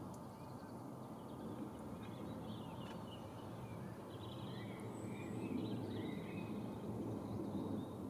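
Outdoor ambience: a steady low background rumble with faint, scattered bird chirps, mostly in the middle.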